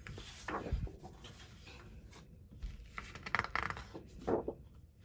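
Sheets of 12x12 scrapbook paper being handled and turned over by hand: several short rustles and slides as each sheet is lifted and flipped.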